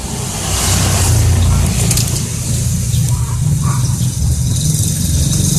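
An engine running steadily. It grows louder about half a second in and then holds at that level.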